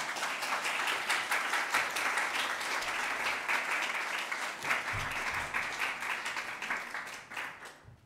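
Audience applauding: many hands clapping at once in a dense, even patter that dies away near the end.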